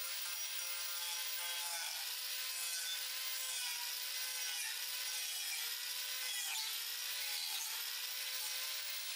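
Angle grinder with a toothed wood-cutting disc running and cutting through a pine board: a steady motor whine over the hiss of the cut, the pitch dipping slightly several times as the disc bites into the wood.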